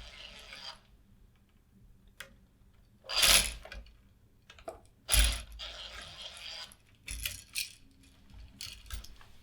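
Scattered metallic clicks and rattles from handling an old wall switch and its wires in a metal electrical box as the switch is removed, with two louder clatters about three and five seconds in.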